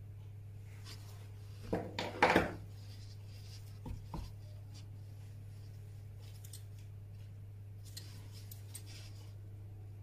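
Handling sounds of orthodontic wire, stainless steel pliers and a dental stone cast in gloved hands: a loud short rustle about two seconds in, two light clicks near four seconds, and a few faint ticks later, over a steady low hum.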